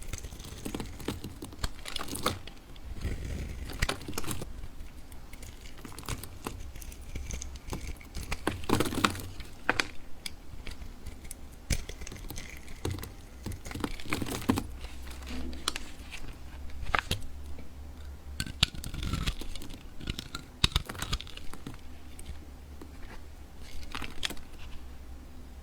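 A block of soap being cut and crumbled with a knife, making irregular crisp cracks, scrapes and crunches. A low, steady hum runs underneath.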